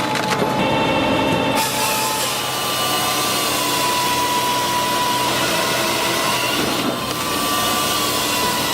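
Powered machinery running loudly with a steady whine over a dense mechanical noise. The sound changes abruptly about one and a half seconds in and again near the end.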